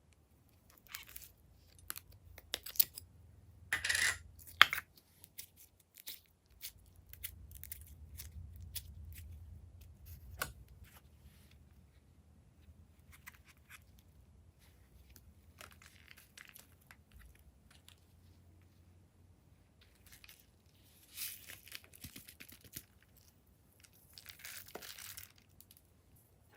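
Glossy slime being handled and mixed by hand: scattered sharp sticky clicks and crackles, with a few louder bursts of crackling.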